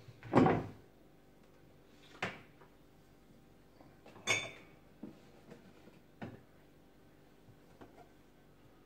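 Knocks and clatters of kitchenware being handled. One is loudest about half a second in, another comes about two seconds in, and a metallic clank with a brief ring follows a little after four seconds. Fainter taps come after that.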